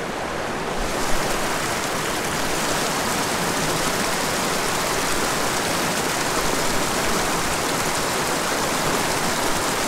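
Small mountain creek rushing over rocks and fallen logs, a steady hiss of moving water.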